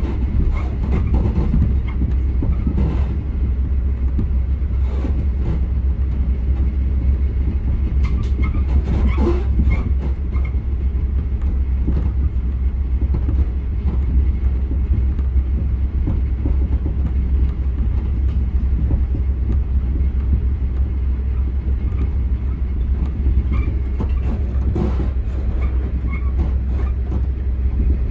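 Steady low rumble of a moving regional train heard from inside the passenger car, with a few short clicks now and then.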